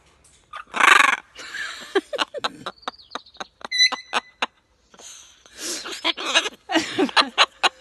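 A woman and a pet scarlet macaw laughing, the macaw mimicking human laughter: choppy bursts of laughing, with a loud harsh outburst about a second in and a short high whistled note near the middle.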